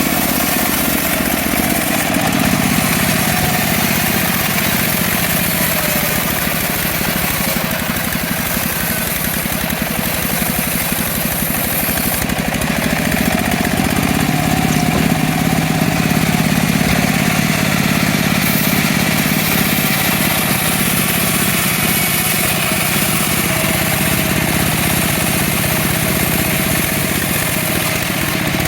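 Petrol engine of a portable band sawmill running steadily, its tone shifting a little about halfway through.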